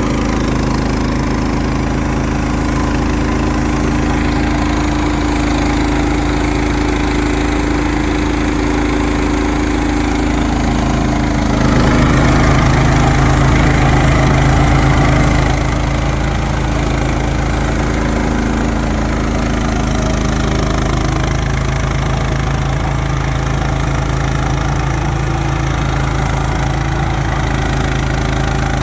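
Gas engine of a Frontier OS31 portable band sawmill running steadily while the band blade makes a pass through an oak log. It gets louder for about four seconds roughly twelve seconds in.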